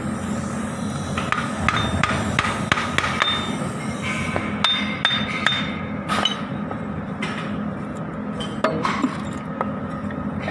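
Repeated sharp metal-on-metal taps and clinks, some with a brief ringing tone, spaced irregularly, over a steady low hum: hammering on metal.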